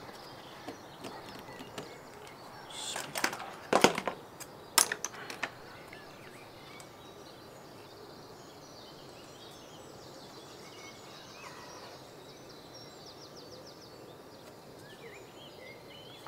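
Plastic speaker casing and parts handled on a workbench: a cluster of sharp clicks and knocks about three to five seconds in, then only a low background hiss.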